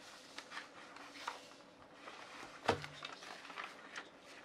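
Quiet room tone with faint rustling and scattered small clicks, and one sharper knock a little past halfway through.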